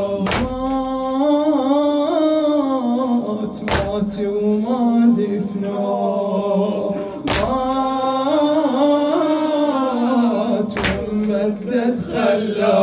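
A male reciter singing a long, drawn-out line of a Shia latmiya lament unaccompanied, the voice sliding and wavering on held notes. A sharp slap of chest-beating marks the beat four times, about every three and a half seconds.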